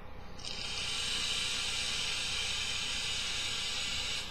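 Long draw on a Joyetech Cubis sub-ohm vape tank: a steady hiss of air pulled through the tank's airflow past the firing coil. It starts about half a second in and cuts off abruptly.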